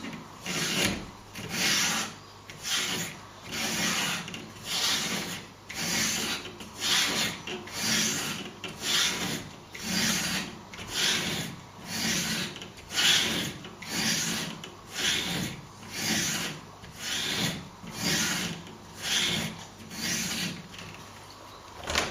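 Knife blade being stropped on a leather belt, a steady run of even back-and-forth rubbing strokes about one and a half a second, as the last, finishing step after sharpening on the stones.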